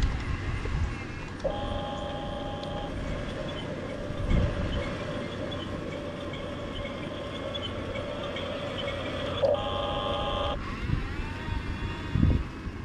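Hunia 1569 RC bulldozer's small electric motors and gearboxes whining steadily as the model drives. The whine starts about a second and a half in, swells briefly near the end and cuts off, over a low rumble with a couple of dull thumps.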